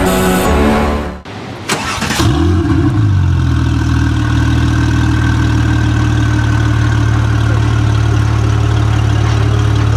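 W Motors Lykan HyperSport's twin-turbo flat-six being started: a brief crank and a quick rise in revs about two seconds in, then a steady idle. Electronic background music plays for the first second or so before the engine.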